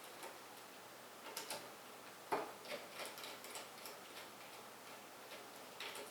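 Irregular light clicks and taps of small hard parts being handled, with one sharper knock a little over two seconds in and a few quicker clusters of ticks.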